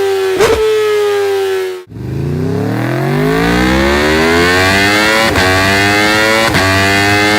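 Superbike engine running at high revs with a slowly falling pitch, then a sudden cut about two seconds in to another sport bike revving up: the pitch rises steeply and then holds high, broken a few times by brief sharp dips.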